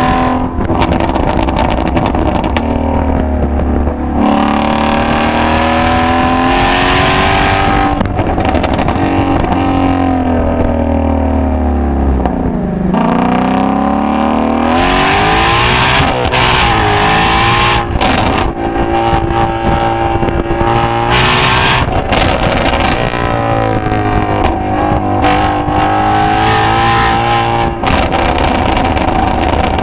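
Ford Shelby GT350's 5.2-litre flat-plane-crank V8 exhaust while driving, the engine note rising and falling as the car accelerates and eases off. About twelve seconds in the pitch sinks low, then climbs again.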